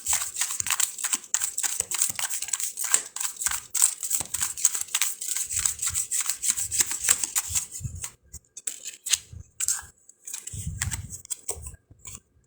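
A deck of round fortune cards being shuffled by hand: a rapid run of papery flicking and clicking for about eight seconds, then slower, scattered taps as the cards are handled and laid out.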